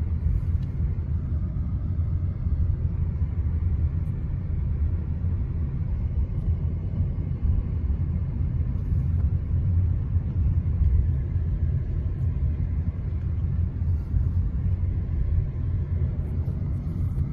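Steady low rumble of a car driving, heard from inside its cabin.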